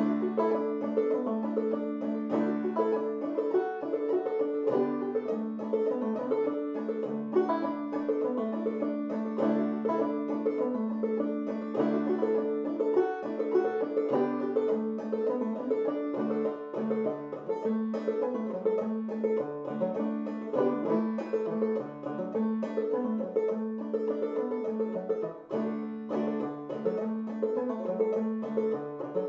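Five-string banjo played clawhammer (frailing) style: an old-time tune in D with the banjo tuned aDADE. Steady plucked notes run through it, and a high drone note rings steadily over the moving melody.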